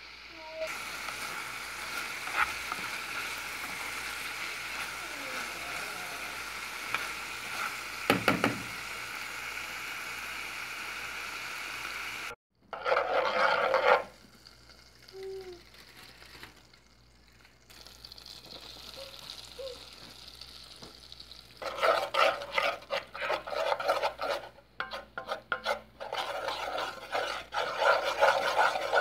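Chicken pieces sizzling as they stir-fry in a frying pan, with the spatula knocking on the pan now and then. After a break about 12 seconds in, butter melts quietly in the pan. Over the last seven seconds or so a spatula scrapes a thick butter-and-flour paste around the pan in quick repeated strokes.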